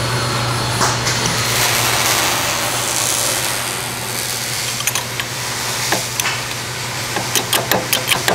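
Hydraulic bottle jack being pumped by hand, pushing the rear axle down to make room for a new coil spring, over a steady hum and hiss. Near the end there is a quick run of ticks, about five a second.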